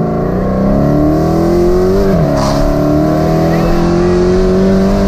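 Supercharged V8 of a Dodge Hellcat tuned to about 1,000 horsepower, heard from inside the cabin under hard acceleration. The engine pitch climbs steadily, drops at an upshift about two seconds in, then climbs again.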